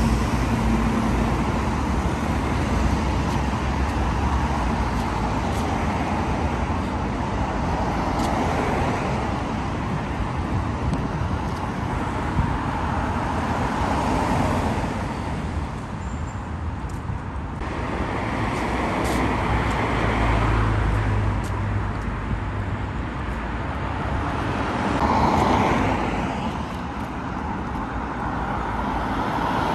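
City street traffic: a steady rumble of road vehicles, with several passing close, each swelling and fading, about a third of the way in, around two-thirds through and near the end.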